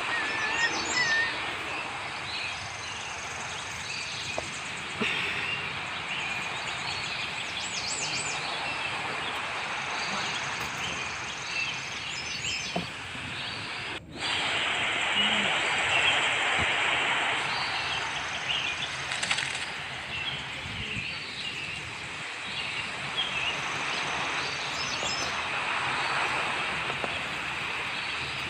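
Steady outdoor background hiss with small birds chirping now and then, in short high calls every few seconds. About halfway through, the sound drops out for a moment and comes back slightly louder.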